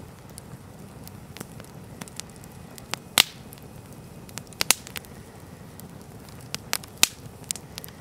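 Wood campfire burning: sharp, scattered crackles and pops from the logs over a low steady hiss of the flames, the loudest pops about three seconds in and again about seven seconds in.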